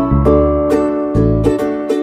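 Background music: a light, upbeat tune of plucked-string notes over a pulsing bass line.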